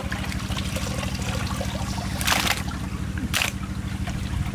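Water trickling and sloshing as pieces of raw duck meat are washed by hand in a large aluminium pot, with two louder splashes about a second apart past the middle, over a steady low hum.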